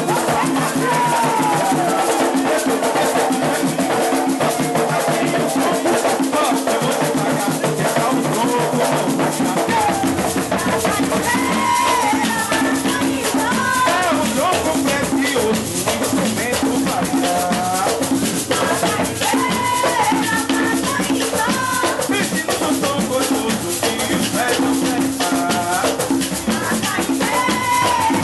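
Coco music: a singer's voice over a steady shaker rhythm and drums, with the low end filling in about ten seconds in.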